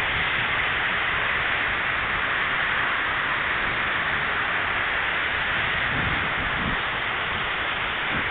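Fountain jets spraying up and splashing down into a pool, a steady rushing hiss of falling water.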